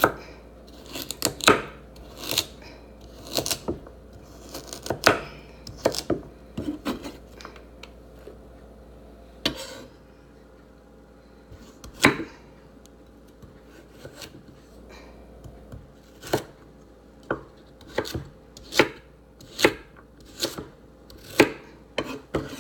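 Kitchen knife chopping carrots on a wooden cutting board: separate, sharp cuts at an uneven pace with a few short pauses, settling to about one chop a second near the end.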